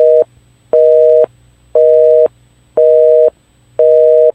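North American telephone busy signal: a loud two-note beep, half a second on and half a second off, repeating about once a second, five times.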